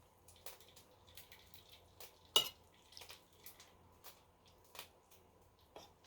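Scattered light clicks and clinks, like small hard objects being handled, with one sharper clink about two seconds in.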